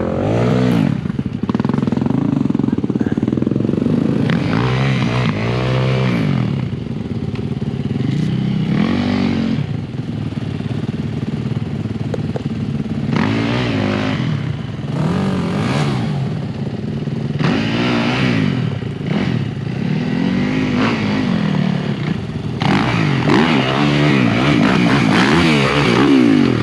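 Dirt bike engine being ridden hard, revving up and falling back again and again as the throttle is opened and shut, loudest near the end.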